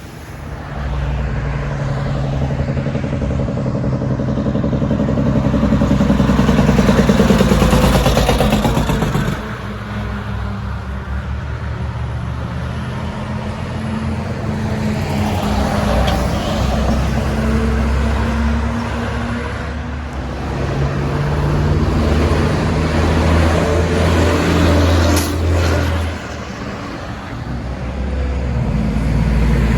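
Heavy diesel trucks driving past one after another, each engine swelling louder as it nears and fading as it goes by. A short sharp sound cuts through about 25 seconds in.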